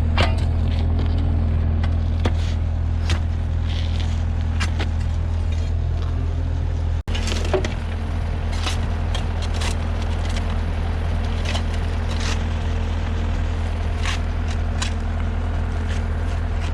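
An engine running steadily at a constant speed, with scattered sharp knocks and clinks of hand tools on concrete over it. The sound cuts out for an instant about seven seconds in.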